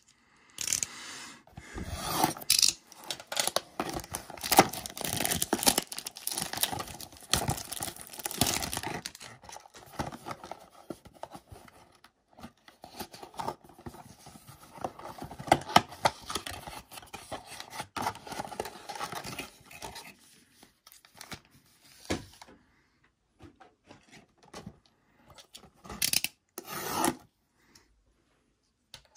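A cardboard trading-card blaster box being unwrapped and opened by hand: plastic wrap tearing and crinkling, cardboard rubbing and scraping, and foil card packs rustling as they are slid out. The handling goes on almost without a break for the first twenty-odd seconds, then stops, leaving only a couple of short rustles near the end.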